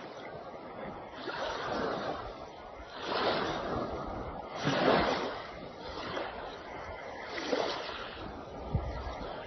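Sea waves washing in and drawing back, a rushing noise that swells and fades in repeated surges every couple of seconds, the loudest about halfway through.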